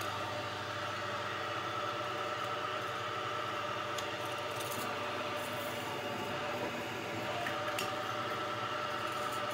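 Workshop machinery running with a steady hum made of several held tones, with a few light clicks.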